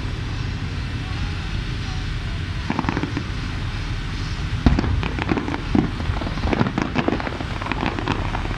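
Aerial fireworks going off: a few bangs about a third of the way in, then a rapid run of bangs and crackles through the second half, over a steady low rumble.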